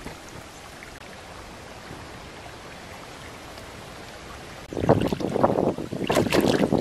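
A steady stream rush, then from about five seconds in loud irregular splashing as hands plunge into a shallow rock pool to grab bighead catfish.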